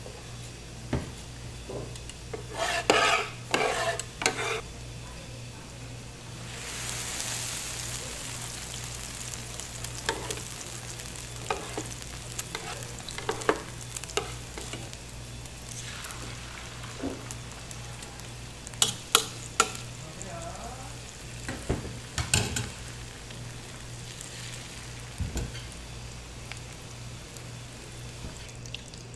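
Beaten egg mixture sizzling on a hot oiled electric griddle, with a hiss that swells about six seconds in as more egg goes on. Plastic spatulas scrape and tap against the pan at intervals.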